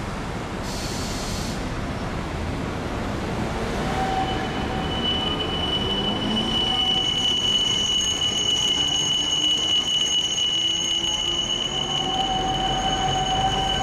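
Steel tram wheels squealing steadily on curved street-running rail, starting about four seconds in, over street noise. A short hiss comes near the start.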